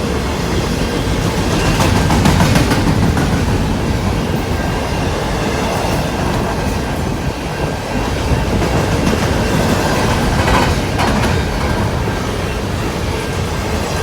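Intermodal freight train rolling past: the steady rumble of its cars' wheels on the rails, with a few clacks over rail joints.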